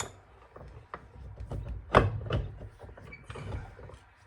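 Clunks and knocks of metal parts being handled and clamped in a bench vise, with a few separate knocks; the loudest comes about two seconds in, followed closely by a second, and a short scrape near the end.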